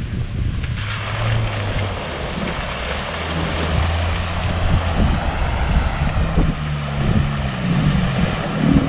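A small motorboat running past on the water: a steady engine hum, with a hiss of water and engine noise that swells from about a second in. Wind buffets the microphone.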